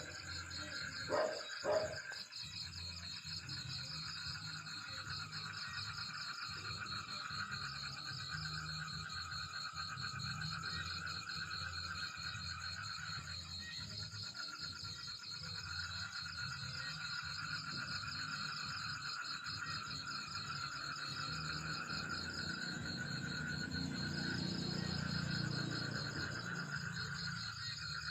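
Insects, such as crickets, trilling steadily in a chorus of several fast-pulsing high tones, over a low hum. Two short knocks come between one and two seconds in.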